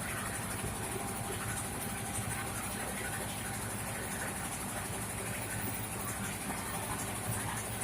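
Old rice-milling machine running steadily, its engine giving a low, even hum with a steady high hiss over it.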